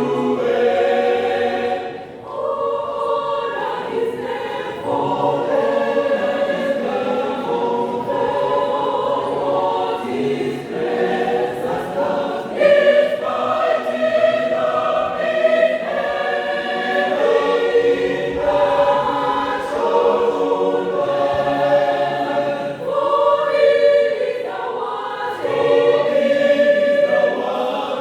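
Church choir singing a gospel song in several voice parts, with a brief dip about two seconds in.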